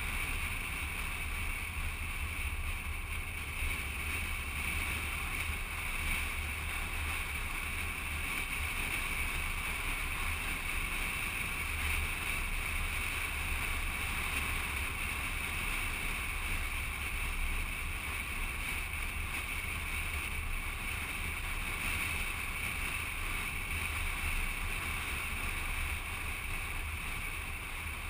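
Steady wind rush on the microphone with a low rumble from a moving vehicle, recorded by a camera mounted on its outside.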